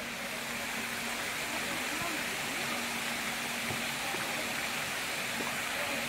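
Several pond fountain jets spraying, a steady hiss of falling water, with people's voices faint underneath.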